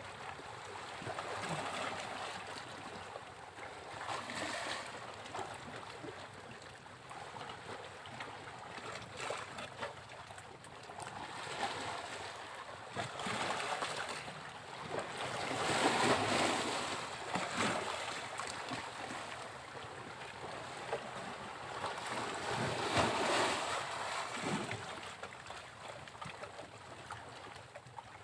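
Sea waves breaking on a beach: a steady wash of surf that swells as waves come in, loudest in two crashes about sixteen and twenty-three seconds in.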